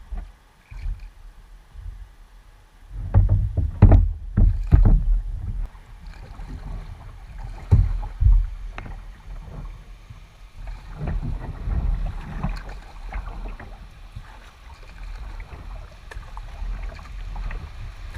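Kayak being paddled on a river: paddle strokes and water splashing against the hull, with a few heavy thumps about three to five seconds in and again around eight seconds.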